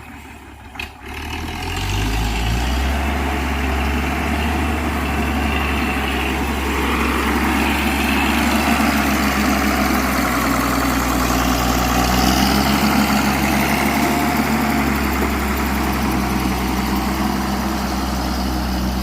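Heavy earth-moving machine's diesel engine revving up about a second in, just after a click, then running loud and steady.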